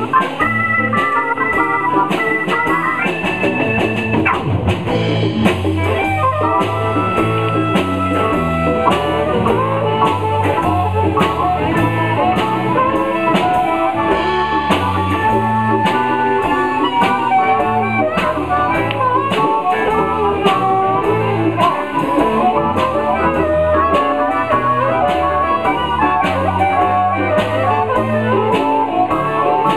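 Live blues band playing an instrumental stretch over a steady drum-kit beat, with electric guitar and keyboard. A lead instrument holds long high notes in the first few seconds.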